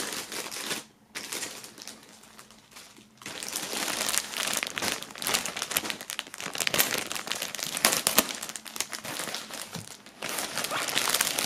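Clear plastic bag around a bomber jacket crinkling and rustling as it is handled and worked open. It is fainter for the first few seconds, then a dense crackling from about three seconds in.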